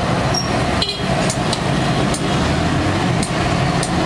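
Light metallic clinks and taps, irregular, about every half second, from handling battery parts in a workshop, over a steady low rumble of street traffic.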